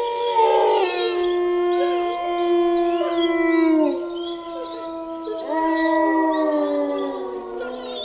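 Several wolves howling together in chorus: long held notes at different pitches overlap, some sliding down at their ends. The chorus dips about four seconds in, and new howls rise a second and a half later.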